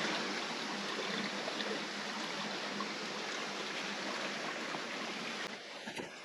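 Steady rushing of falling water from a waterfall, dropping away about five and a half seconds in.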